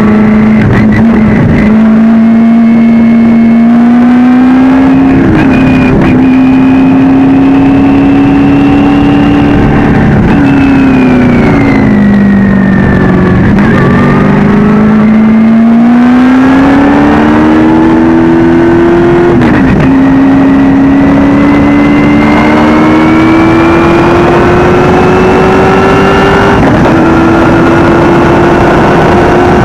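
Shelby Can-Am race car engine at racing speed. Its pitch climbs steadily and drops sharply on several upshifts. About ten seconds in the pitch sinks as the car slows for a corner, then it climbs again through the gears.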